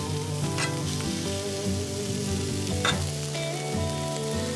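Diced ham, onions and peppers sizzling in butter on a Traeger Flatrock flat-top griddle, with a metal spatula scraping across the steel as the ham is pushed around. Two sharper scrapes stand out, about half a second in and near three seconds.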